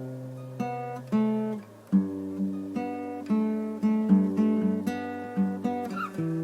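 Background music: acoustic guitar picked and strummed.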